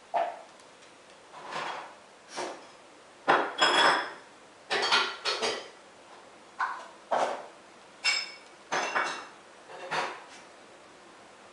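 Irregular clinks and clatters, about a dozen, spaced roughly a second apart; two of them, a third of the way in and about two-thirds in, ring briefly like metal.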